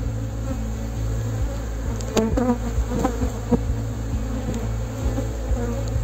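Honeybees buzzing in a steady hum around an open hive, with a few short knocks about two to three and a half seconds in.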